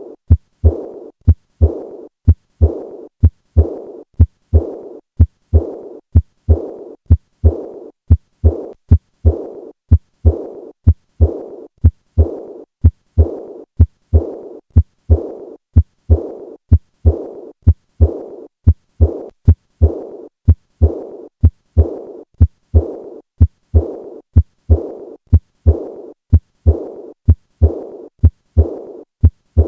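Heart sounds heard through a stethoscope at the fourth left intercostal space, beating regularly a little over once a second: each beat a short low thump followed by a blowing murmur that fades away, the decrescendo murmur of acute aortic regurgitation.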